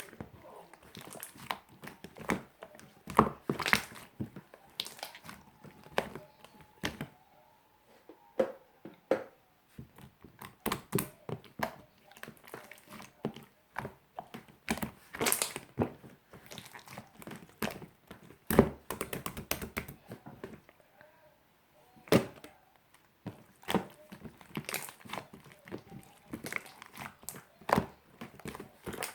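Slime being squeezed, folded and stretched by hand, giving irregular sticky clicks and pops from trapped air, some in quick clusters.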